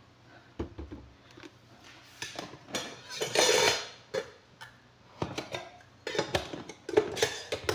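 Scattered clinks and knocks of kitchen utensils and containers being handled, with a louder noisy scrape lasting about a second around three seconds in.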